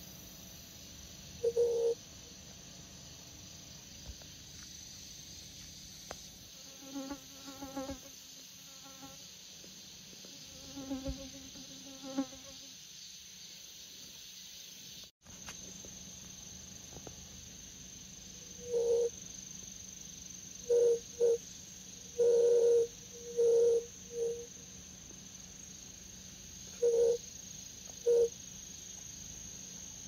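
Grass insects such as crickets chirring in a steady high continuous tone, with short, loud buzzes from a bee flying close by, a pulsing series a few seconds in and several separate buzzes in the second half.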